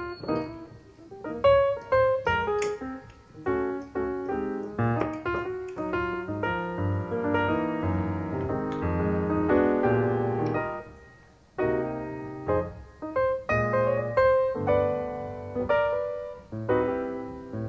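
Background piano music: a gentle melody of notes struck and left to ring, with a brief lull about eleven seconds in.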